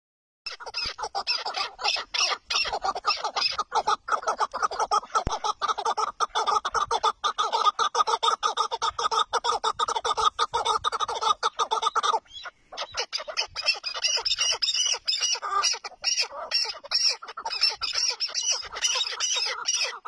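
Chukar partridges calling in a rapid, continuous run of chattering notes. The calling breaks off briefly about twelve seconds in, then resumes.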